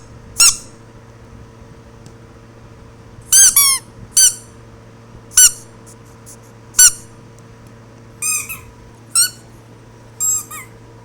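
A series of about ten short, high-pitched squeaks at uneven spacing, some in quick pairs, over a steady low hum.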